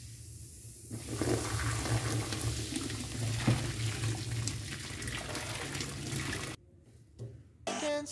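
Liquid poured in a stream into a stainless steel kitchen sink and splashing down the drain, starting about a second in and cutting off suddenly near the end.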